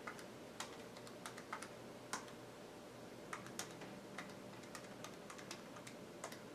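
Faint, irregular key clicks as figures are tapped in on a calculator keypad to work out the slug's energy in foot-pounds.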